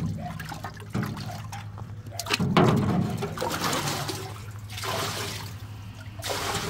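Water sloshing and splashing in a metal barrel as hands move a large pan about in it, then water pouring off the pan as it is lifted out and streaming back into the barrel.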